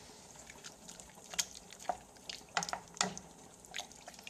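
Faint, irregular liquid pops and ticks from a pot of boiled brewis in hot water on an electric stove.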